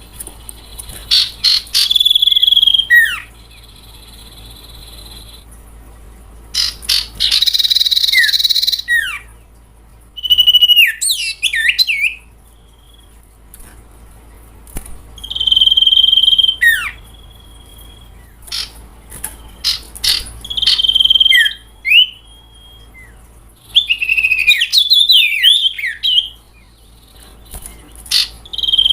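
Sirtu owlet lure-call recording: groups of harsh, high chattering calls with quick downward-falling notes, each group lasting one to three seconds and recurring every few seconds with short pauses between.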